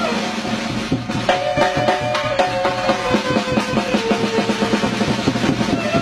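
Music with a drum kit playing a fast, steady beat under sustained melodic tones.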